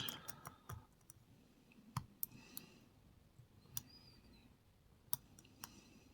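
Faint, irregular metallic clicks and light scraping from lock-picking tools working the pins and core of a steel shrouded padlock, with a few brief thin squeaks of metal on metal.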